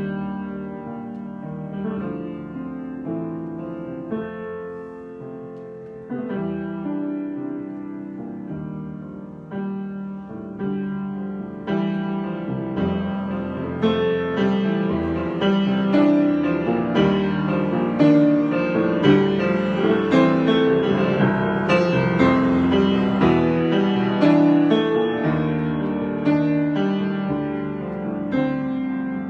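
Solo piano improvisation. It begins soft and sparse, grows louder and fuller with busier chords about halfway through, then eases off near the end.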